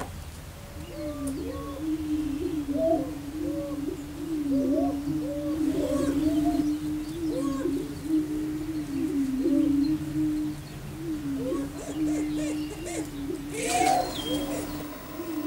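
Several male greater prairie-chickens booming on a lek: low, hollow, overlapping moans that run almost without a break, with higher whooping calls curling over them. A brief harsher burst comes near the end. This is their courtship display to the females.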